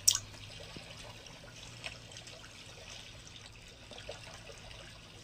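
Faint trickling water over a low steady hum, after a sharp click at the very start.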